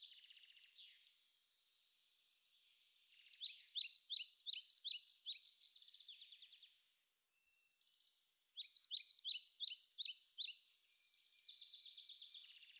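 Songbird singing two phrases of rapid, repeated high chirps, the first about three seconds in and the second about eight and a half seconds in, with fainter twittering between them.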